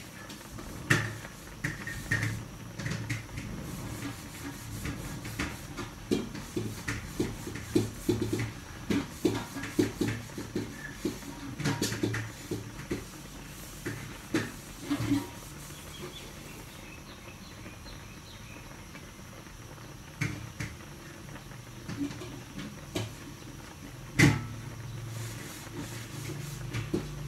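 Tocino (cured pork) boiling in water in an aluminium wok, its bubbles making irregular soft pops and clicks, busiest in the first half and again for a spell later, with one sharper knock near the end.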